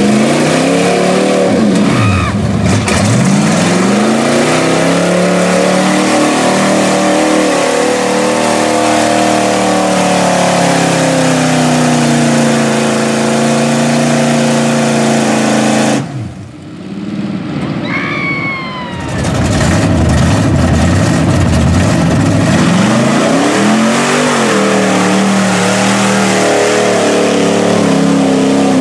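Engines of lifted Chevrolet pickup trucks revving hard as they plow through deep mud, the pitch rising and falling with the throttle. Just past the middle there is a short dip and a break, followed by a brief high falling whine, before the hard revving resumes.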